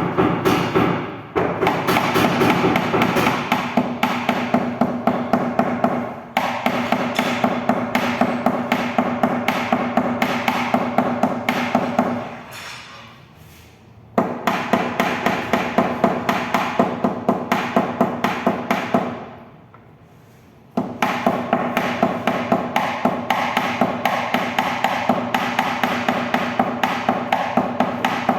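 Hammer blows on metal to knock out dents, even and quick at about three a second, each with a ringing tone, in runs of several seconds broken by two short pauses.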